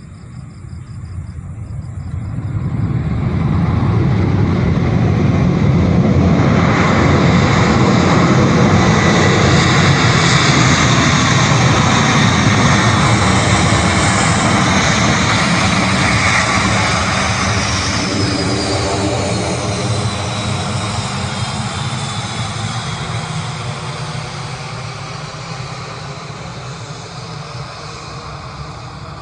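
Jet airliner passing close by, its engine noise swelling over a few seconds, staying loud for about ten seconds, then fading away with a whine that falls in pitch as it goes past.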